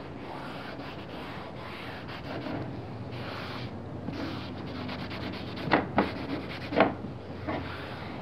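An acetone-dampened cloth rubbing and wiping over the sanded surface of HDPE boards, cleaning off the last of the sanding dust. The rubbing is a steady hiss, with two brief louder sounds about a second apart past the middle.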